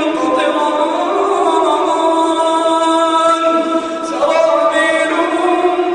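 A male voice chanting Quran recitation in long, drawn-out melodic notes, the elongated vowels of tajweed, with a short pause about four seconds in before the melody picks up again.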